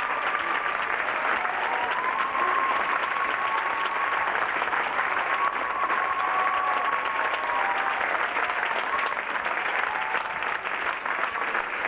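Theatre audience applauding steadily for a dancer's bow.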